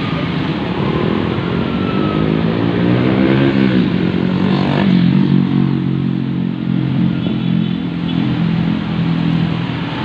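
Road traffic: motorcycle and car engines passing on a busy road below. One engine's pitch rises over the first few seconds and drops off about four seconds in, then a steady engine note carries on.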